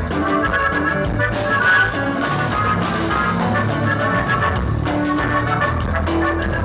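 Live norteño band playing: accordion carrying the melody over guitar, electric bass and drum kit.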